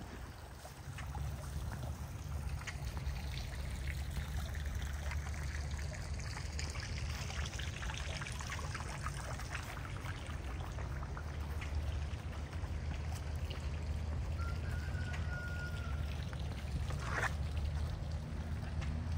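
Water trickling and splashing in a garden fountain, over a low steady hum.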